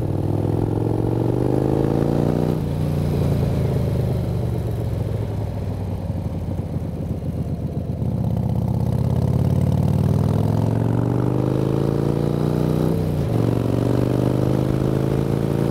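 A 1994 Harley-Davidson Fatboy's Evolution V-twin running under way. Its revs climb and drop sharply as it shifts up a gear about two and a half seconds in, and climb again and drop with another upshift about thirteen seconds in.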